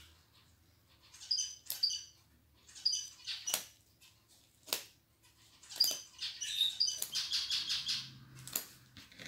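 A small bird chirping in short groups of high chirps, with a few sharp clicks in between from cutting open a package.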